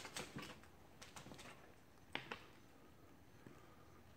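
Faint, irregular footsteps and scuffs on a debris-strewn floor, with two sharper steps about two seconds in.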